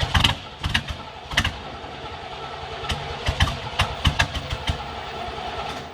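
An engine running steadily, with a series of sharp clicks and knocks over it; the sound starts abruptly and stops at the end.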